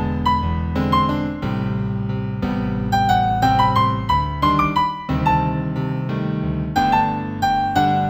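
Piano playing a gentle new-age piece in G major: a melody of notes struck about every half second over held lower chords.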